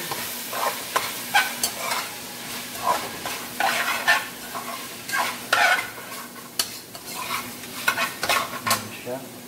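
A utensil stirring pork and pork stomach as they sizzle in a stainless steel pot: many irregular scrapes against the pot over a steady sizzle.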